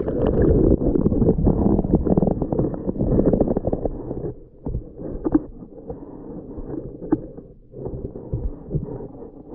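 Muffled underwater sound from an action camera submerged in lake water under the ice: a sharp knock as it goes in, then dense bubbling and rumbling for about four seconds, settling into a quieter hiss with scattered clicks.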